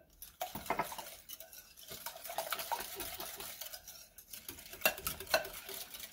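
Wire whisk beating eggs and milk in a glass mixing bowl: a rapid, continuous stream of light ticks and clinks as the wires strike the glass, with a couple of louder clinks near the end.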